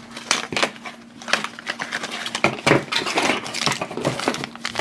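Plastic and foil toy packaging crinkling and crackling in the hands as a small blind pack is opened and the foil blind bag inside is handled. It comes as a run of irregular crackles.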